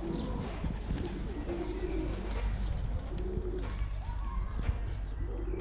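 Racing pigeons cooing, several low hummed coos, with a small bird's high chirps in quick runs of four falling notes twice.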